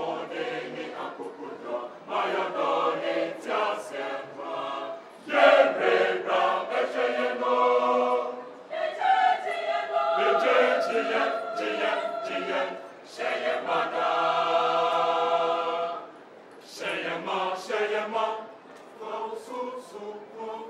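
Choir of men's and women's voices singing together in sustained phrases, with short breaks between phrases.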